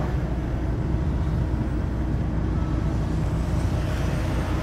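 Inside the cab of a Kenworth semi truck rolling slowly in traffic: the diesel engine's low, steady rumble with a knocking from underneath the front end, of a cause the driver doesn't know.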